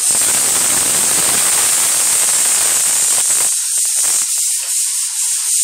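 A loud, steady hiss that starts suddenly, with a few faint scrapes coming through about halfway in.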